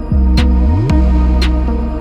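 Electronic dance music with a heavy, sustained bass line broken by rising bass slides, and a crisp percussion hit about once a second.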